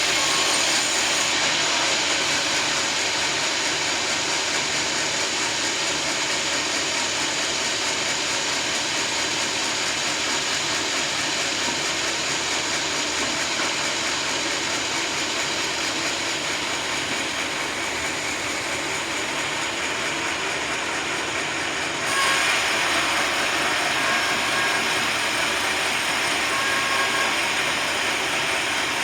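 Sawmill machinery running with a steady, loud mechanical noise as a teak log is sawn into planks. About 22 s in it becomes louder and brighter.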